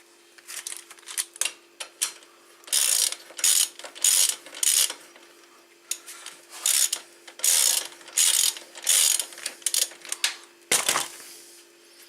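Socket ratchet wrench clicking in short bursts, one burst per swing of the handle, as an engine mounting bolt on a 125cc motorcycle is worked loose. A single heavier knock comes near the end.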